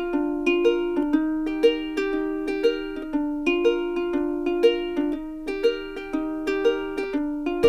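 Background music: a plucked-string melody, ukulele-like, of short repeating notes in a steady, bright rhythm.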